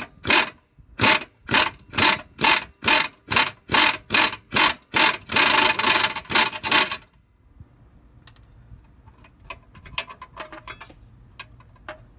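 Ratcheting wrench turning the front motor mount bolt: a burst of ratchet clicks on each swing, about two a second, then a couple of seconds of fast continuous ratcheting, then a few faint clicks and taps.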